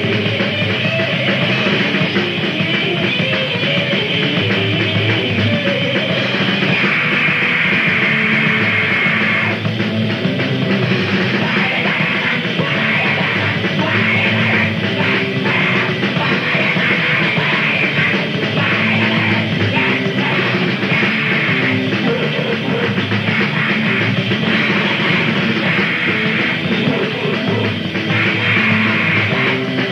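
Grindcore band playing: loud, dense distorted guitars and drums with yelled vocals, a muffled lo-fi cassette recording with no break.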